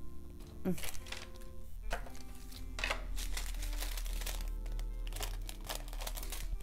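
Small plastic zip-lock bags of diamond painting drills crinkling as they are handled, in several short rustles, over background music.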